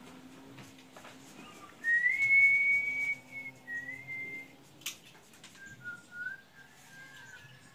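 Someone whistling slow, drawn-out notes: a loud high held note about two seconds in, then a softer, lower wavering phrase. A sharp snip of the bonsai scissors cuts through about five seconds in.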